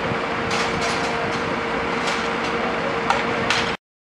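Steady engine drone with a held low hum, over which come several sharp knocks at uneven intervals. The sound cuts off abruptly near the end.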